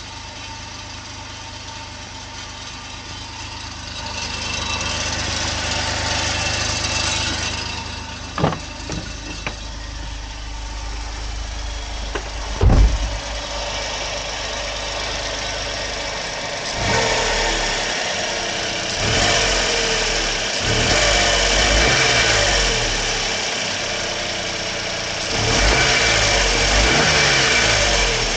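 Suzuki Carry DA63T kei truck's 660 cc three-cylinder engine running steadily, with two sharp knocks in the first half. In the second half the engine is revved up and back down several times.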